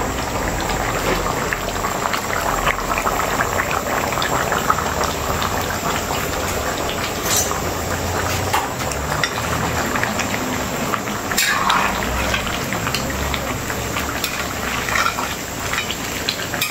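Curry sauce bubbling at a boil in a large aluminium pot on a gas stove, a steady bubbling hiss, with a few short metallic clicks from a ladle knocking the pot, the clearest about eleven seconds in.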